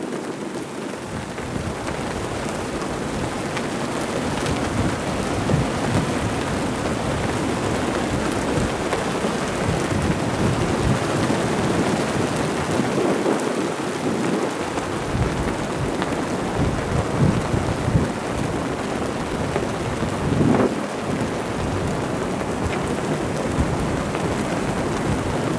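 Wind blowing hard across the microphone: a steady rushing noise with rumbling gusts.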